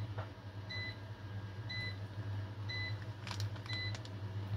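Hoover washing machine beeping: short, high electronic beeps repeating about once a second over a steady low hum, with a light knock about three seconds in.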